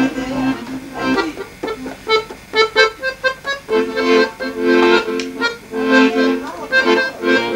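Guerrini chromatic button accordion playing: short, choppy notes at first, then longer held chords from about four seconds in.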